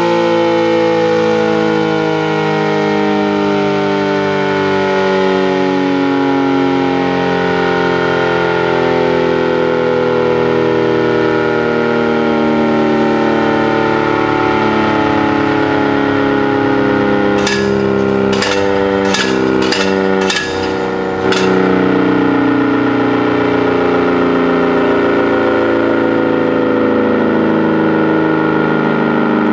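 ACA Superbanshee electromechanical warning siren sounding a loud multi-tone chord whose pitch slowly sinks, then holds steady. About two-thirds in, a few seconds of rapid fluttering with sharp clicks chop the tone as its dampers open and close: kickback on the damper control buttons from the siren's own vibration.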